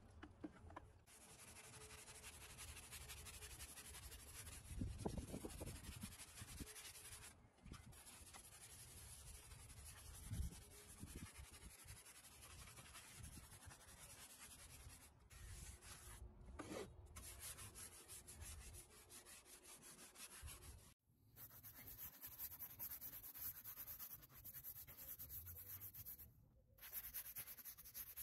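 Stiff-bristled scrub brush scrubbing soapy water over a primed fiberglass boat hull to wash it before the top coat: a faint steady rubbing, with a couple of louder knocks about five and ten seconds in.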